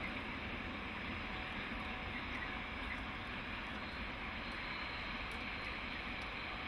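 Distant goods train hauled by DR V100 (BR 112) diesel locomotives running away, heard as a steady low rumble of engines and wheels on the rails.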